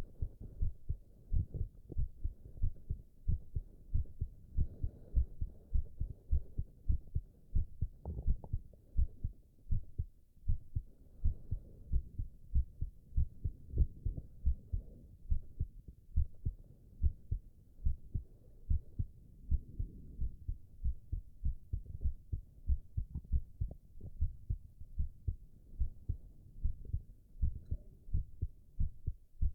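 A man's heartbeat, recorded close up: a steady run of regular, low, dull thumps.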